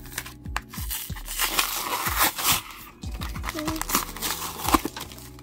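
Plastic-and-cardboard trading-card blister pack being opened, crinkling and tearing from about a second in until near the end, over background music.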